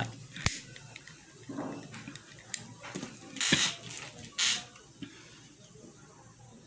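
A candle being lit: a sharp click about half a second in, then short scraping hisses around three and a half seconds in as the flame is struck, among light handling taps.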